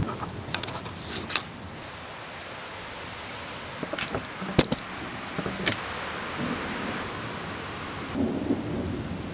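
A thunder rumble dies away at the start, leaving a steady hiss of rain. A few sharp ticks come through, about a second in and again around four to six seconds in.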